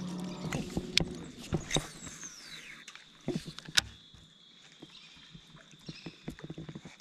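Baitcasting reel being wound in: a steady gear whir at first, then scattered sharp clicks and knocks as the reel and rod are handled. A faint steady high tone comes in about four seconds in.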